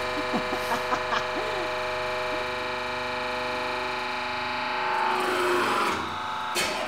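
Hydraulic press running with a steady, even hum as its ram squashes a modelling-clay dinosaur figure. There are a few small crackles in the first second or so, a rougher crunching patch about five seconds in as the clay spreads flat, and a short sharp sound near the end.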